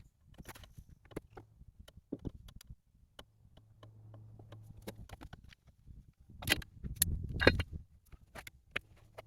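Hand work on old machinery: scattered light clinks and knocks of metal parts and tools being handled, with a louder burst of knocking about two-thirds of the way through.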